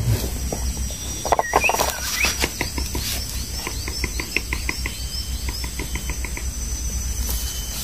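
A bird calling: a rising note, then a run of quick repeated notes at about four a second lasting some four seconds, over a low steady rumble.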